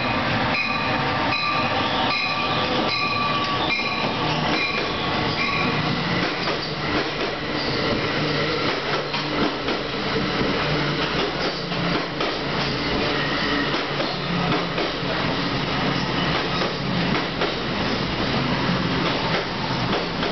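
New Jersey Transit ALP-46 electric locomotive and multilevel coaches pulling into a station. A repeated ringing sounds about twice a second for the first six seconds or so, over the steady rumble and clatter of the wheels on the rails as the coaches roll past.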